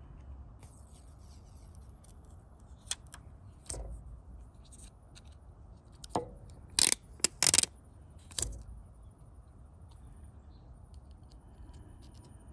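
Small clicks and taps from handling a metal-framed glass watch screen protector and a dust-absorber sticker, with a quick run of louder sharp noises about seven seconds in.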